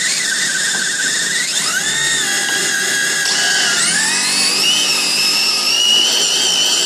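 High-pitched electric whine from RC drag cars' 7-turn electric motors spinning at high speed, several tones at once, gliding up in pitch twice and then holding steady.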